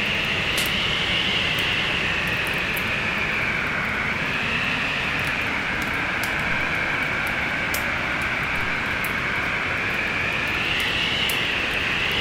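Wood fire crackling with small sharp pops, irregular and several a second, over a steady rush of storm wind whose whistle slowly rises and falls in pitch.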